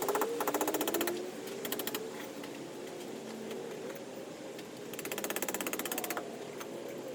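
Small hammer driving tent pegs into dirt, heard as three quick runs of strikes at roughly a dozen a second, the longest near the start and another about five seconds in.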